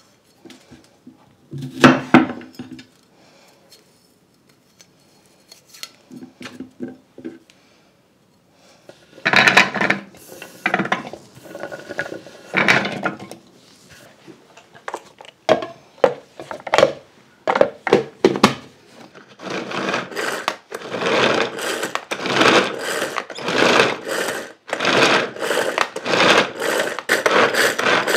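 Sliced garlic scraped and knocked off a wooden cutting board into a plastic chopper bowl. Then a hand-powered food chopper is worked over and over, about once a second, its spinning blades mincing the garlic.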